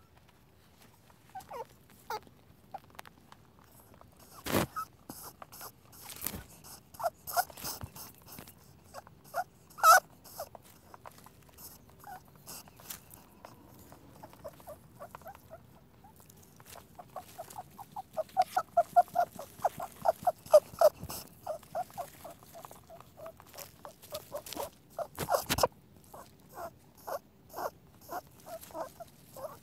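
Rabbit squeaking: short high squeaks, scattered at first, then a fast run of several squeaks a second a little past halfway. A few sharp clicks fall between them.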